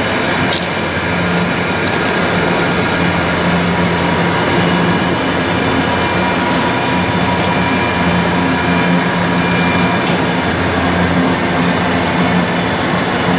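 Okamoto Grind-X PRG6DXNC horizontal-spindle CNC rotary surface grinder running under power: a steady mechanical hum and whir, with a few light clicks.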